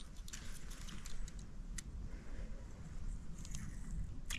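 Faint handling noise while a hooked fish is fought up through the ice: scattered light clicks and ticks over a low rumble.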